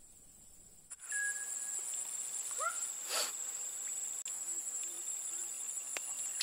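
A steady, high-pitched trill from an insect chorus, starting abruptly about a second in. A few short chirps sound over it.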